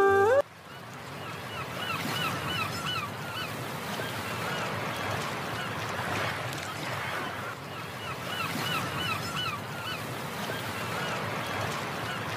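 Flute music cuts off about half a second in, leaving the steady hubbub of a dense crowd of visitors. Twice, around two seconds in and again near nine seconds, a quick run of squeaky chirps sounds over it.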